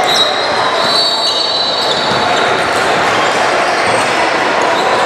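Basketball game din in a gym: a steady wash of players' and spectators' voices and movement echoing off the hall, with a basketball bouncing on the court.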